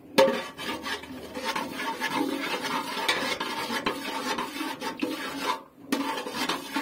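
Metal ladle scraping and rubbing round the bottom of a large aluminium pot in quick, irregular strokes, stirring sugar in hot ghee as it caramelizes. It breaks off briefly near the end.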